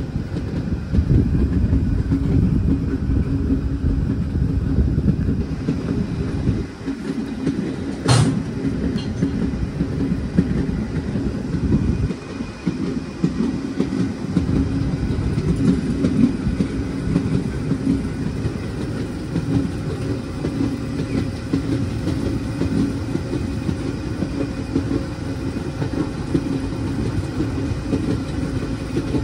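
Moving passenger train running steadily: a continuous rumble of wheels on track with a steady hum, and a single sharp click about eight seconds in.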